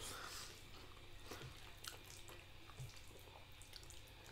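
Faint, scattered small wet clicks of people eating noodles: chewing, lip smacks and chopsticks lifting noodles from the bowls, a few irregular ticks over a low room hum.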